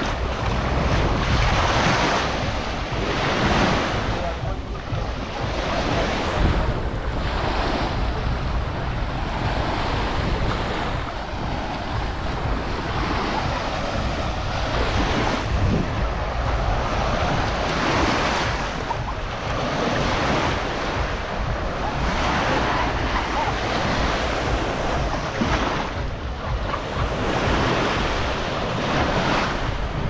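Small sea waves washing up and draining back on a sandy shore, the wash swelling and easing every few seconds, with wind buffeting the microphone as a low rumble.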